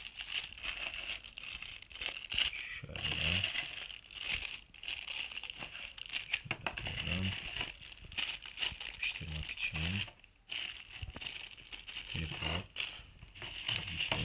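Clear plastic bags crinkling and rustling as hands pick up and set down small bagged camera mounts and accessories, a constant crackle of many small crinkles.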